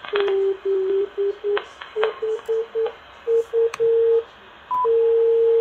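Non-directional beacon heard on a Malahit-clone SDR receiver tuned in upper sideband near 407 kHz: a mid-pitched tone keyed on and off in Morse dots and dashes, its pitch stepping up slightly about two seconds in as the tuning is nudged. Near the end the tone is held long and steady, with a brief higher beep just before it.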